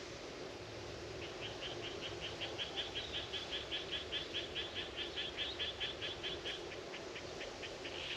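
An animal calling in a long rapid series of high chirps, about five a second, starting about a second in, growing louder, then slowing and stopping near the end.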